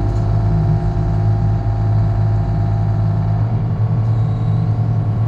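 Engine of heavy construction equipment running steadily at constant speed, a loud low hum.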